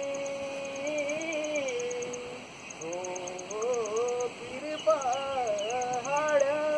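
A man singing a Kumaoni pahadi folk song as a single voice, holding long notes and sliding through ornamented turns, with a short breath about two and a half seconds in.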